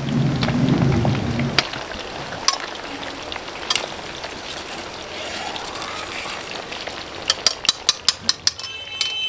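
Gathiya dough being rubbed by hand through a perforated ladle over hot oil: a low rubbing scrape for about the first second and a half, then the steady sizzle of the frying oil with a few sharp clicks, and a quick run of about eight clicks near the end.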